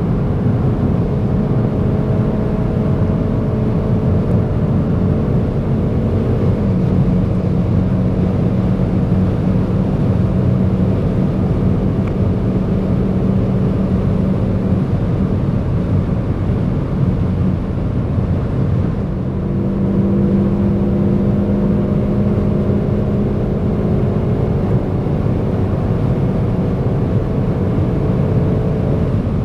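Hyundai i30 N's turbocharged four-cylinder engine droning steadily under road and wind noise at high autobahn speed. The engine note shifts slightly about six seconds in and again about twenty seconds in, with a brief dip in level at the second change.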